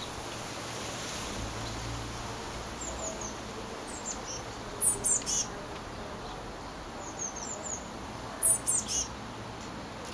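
Blue tits calling with high, thin notes that slide downward, in short runs of two or three. The loudest runs come about five seconds in and again near the end.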